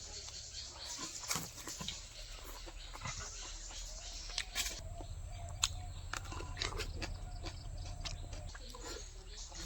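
Close-up chewing and biting of boiled egg and vegetables: wet mouth smacking with frequent sharp crunchy clicks.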